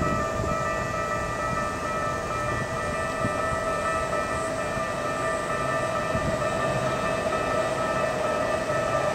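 Japanese railway level-crossing warning bell ringing without a break, several steady tones together, over low traffic noise; a low hum comes in about halfway through.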